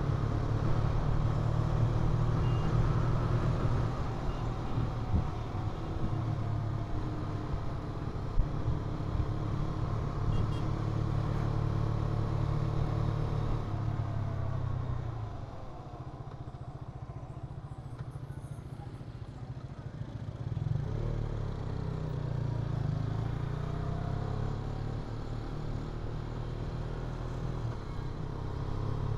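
Vehicle engine and road noise while riding. The engine note drops and the sound quietens as it eases off about fifteen seconds in, then rises again as it speeds up around twenty-one seconds.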